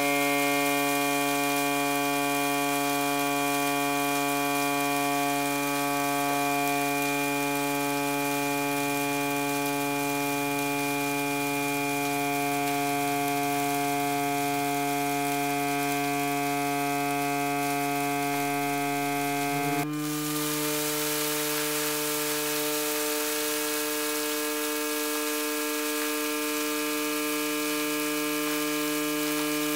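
Loudspeaker driving a metal Chladni plate with a steady 142 Hz sine tone, the plate buzzing with many overtones over a hiss of grains jittering on its surface. About 20 seconds in, the tone steps up slightly to 150 Hz and carries on steadily.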